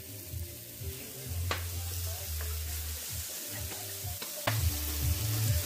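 Meat and vegetables sizzling on a hot electric plancha griddle, under background music with a steady bass line. A few sharp clicks come about a second and a half in and again near four and a half seconds.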